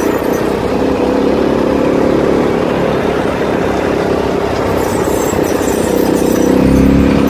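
CFMOTO ATV engine running steadily as the quad is ridden along a rough dirt track.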